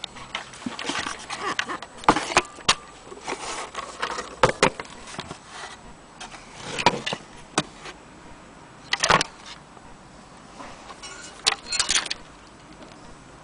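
Irregular clicks, knocks and short rattles of hard objects being handled, with quiet gaps between them.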